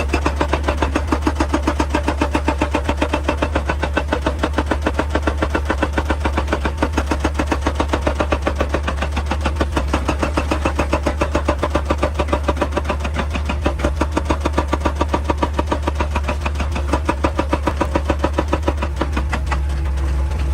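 Excavator working rock, its machinery running with a rapid, even pulsing over a steady low hum.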